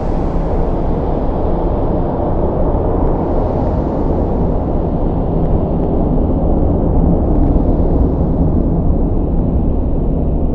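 Thunderstorm: a deep, continuous rumble of thunder, steady, with no sharp cracks.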